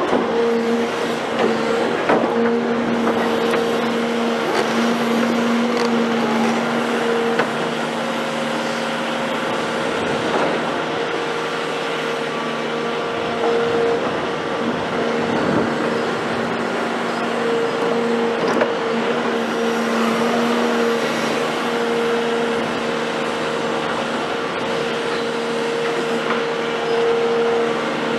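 Caterpillar hydraulic excavator running and working close by: a steady diesel drone with a humming two-note tone that fades in and out as the machine works.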